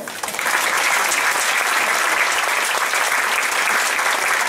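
Audience applauding at the end of a children's dance routine, the clapping coming up quickly about half a second in and then holding steady.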